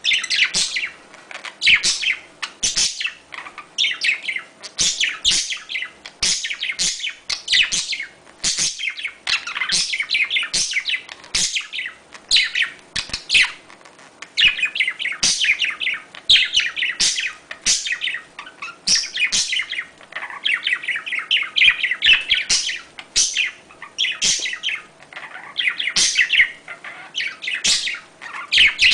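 Budgerigars chirping and warbling: a dense, continuous stream of rapid, high chirps, the chatter of budgies calling in courtship.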